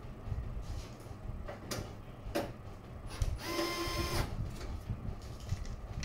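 A couple of sharp clicks, then a short mechanical whir of a small motor lasting under a second, just past the middle, over a low steady rumble.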